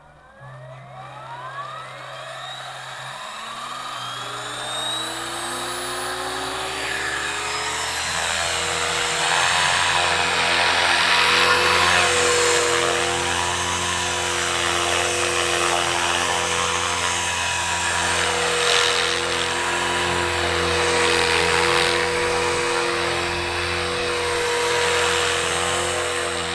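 Align T-Rex 500 electric RC helicopter spooling up: the motor whine rises in pitch and grows louder over the first several seconds. It then holds a steady high whine with rotor-blade noise as the helicopter flies.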